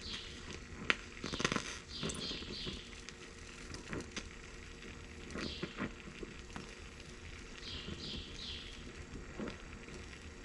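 Oxy-acetylene brazing torch flame hissing steadily on sheet metal as brass rod is melted in, with a couple of sharp clicks about a second in. Birds chirp outside in short runs of three or four quick notes, several times over.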